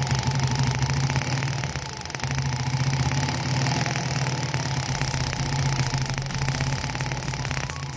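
Suzuki Smash four-stroke single-cylinder engine idling steadily, with a rapid, even ticking from the spark jumping a small air gap between the ignition lead and the plug terminal. This is a spark test of a newly fitted Apido racing ignition coil.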